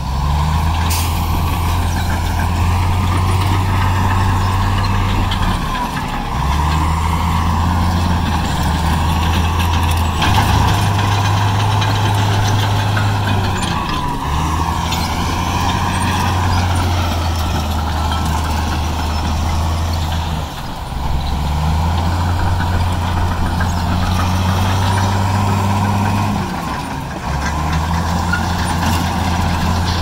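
Heavy diesel engine of a bulldozer running under load, its low note dropping out or shifting briefly every four to seven seconds, with a steady high whine above it.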